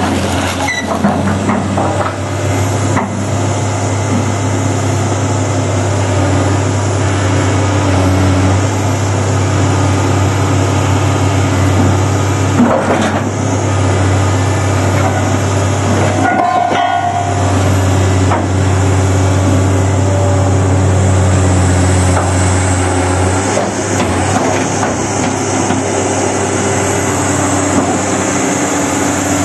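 Komatsu excavator's diesel engine running steadily under hydraulic load as its shear attachment grips and drags heavy Caterpillar D7 undercarriage iron, with metal clanking and scraping and a few sharp metal knocks.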